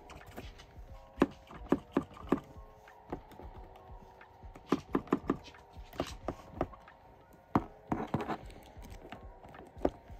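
Sharp clicks and knocks of an MST RMX 2.0 drift car's hard plastic chassis and parts being handled and set against its cardboard box, coming in irregular runs with a quick cluster late on.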